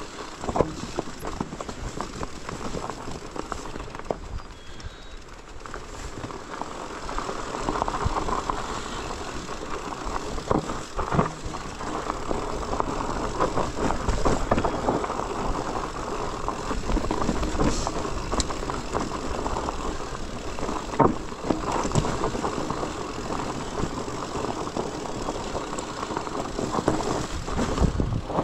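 Bicycle ridden over a rough trail: steady tyre and drivetrain noise with frequent rattles and knocks, and some wind on the microphone.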